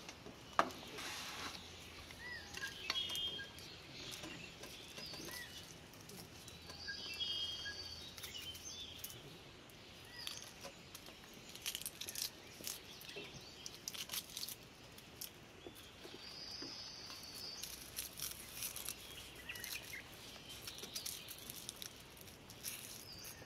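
Dry onion skins crackling and scraping as onions are peeled with a small knife: a run of small, irregular clicks, thicker in the second half. Birds chirp briefly a few times.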